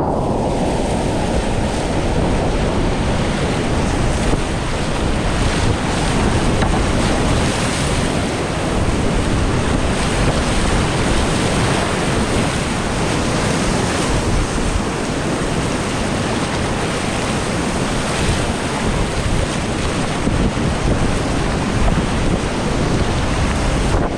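Whitewater rapids rushing steadily at high flow, about 2,440 cfs: a loud, continuous wash of fast, pushy water with no let-up, heard close from the boat.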